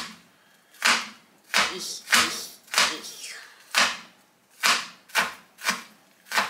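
Kitchen knife chopping scallions finely, about ten sharp chops at an uneven pace, roughly one or two a second.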